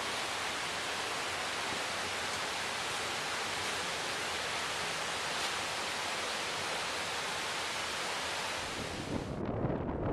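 Steady rushing of a rocky stream, an even hiss with no pauses. About nine seconds in it cuts off suddenly to gusty wind buffeting the microphone.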